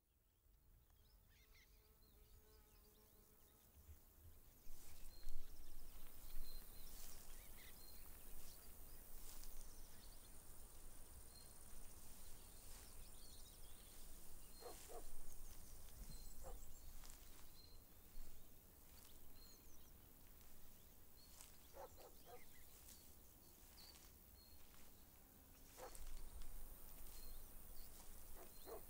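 Faint summer meadow ambience fading in over the first few seconds: a steady high insect hiss, a short high note repeated about once a second, occasional brief bird calls, and a low wind rumble.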